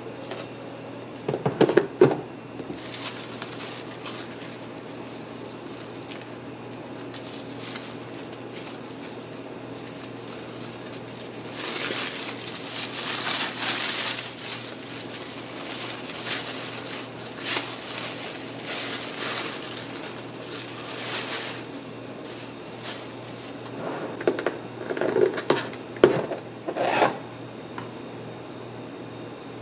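Plastic wrap and a thin plastic bag crinkling and rustling as they are peeled off a takeaway soup bowl, loudest through the middle stretch. A few knocks of plastic lids and containers being handled come near the start and again near the end.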